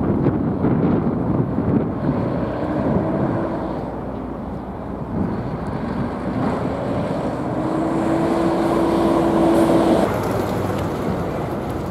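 Wind buffeting the microphone over the low rumble of a large car ferry. A steady hum rises slightly in pitch for several seconds and stops abruptly about ten seconds in.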